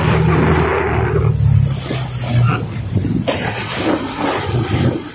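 Fishing bangka's Mitsubishi 4DR5 four-cylinder diesel engine running, with water rushing and splashing along the hull and outrigger. The engine's steady drone turns uneven after about a second, and there is a single sharp knock a little past three seconds in.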